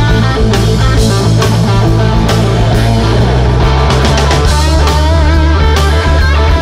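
A live blues-rock band plays with no vocals. A Fender Stratocaster electric guitar plays lead lines with wavering, bent notes over steady bass and drum hits.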